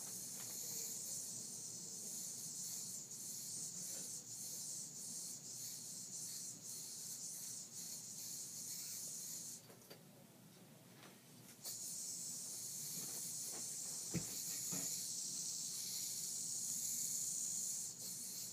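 Yo-yo spinning at the end of its string, a steady high hissing whir that stops for about two seconds midway and then starts again with a fresh throw. A single sharp click comes a couple of seconds after it resumes.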